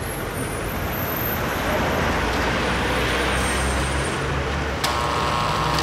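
Road-vehicle engine and traffic noise: a steady low rumble that grows louder. Near the end a brief higher tone cuts in.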